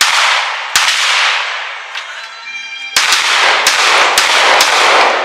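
Handgun shots, about six: two a little under a second apart, then after a pause of about two seconds a quicker string of four. Each report trails off in a long ringing smear.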